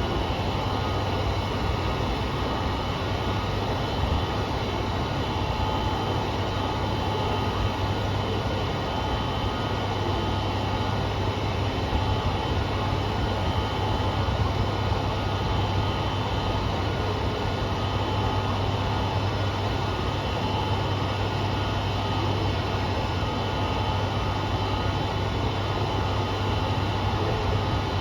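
KiHa 200 diesel railcar unit idling, a steady engine drone with many constant tones, carrying an abnormal noise that the uploader traces to car KiHa 200-1551, which was taken out of service the next day.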